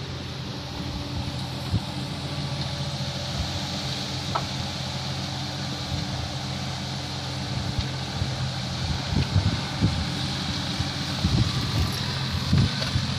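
Kubota mini excavator's diesel engine running steadily, with gusts of wind buffeting the microphone in the second half.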